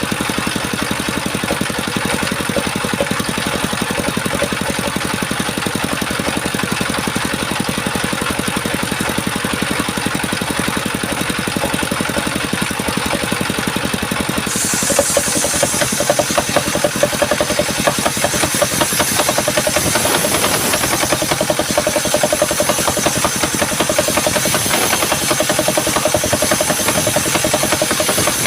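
Engine-driven circular sawmill running steadily with a fast, even engine rhythm. About halfway through, a high hiss comes in and the sound grows louder as the blade cuts into the wood.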